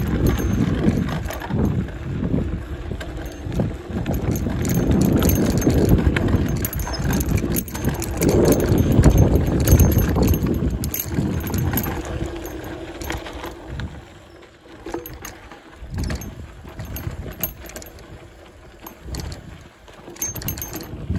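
Mountain bike ridden along a dirt singletrack: wind rumbling on the microphone, tyres on dirt and the bike rattling over bumps. About two-thirds of the way through it quietens, leaving scattered ticks and knocks.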